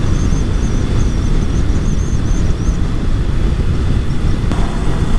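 Wind rushing over the camera microphone of a motorcycle at highway speed, a steady rough rumble, with road and engine noise mixed in.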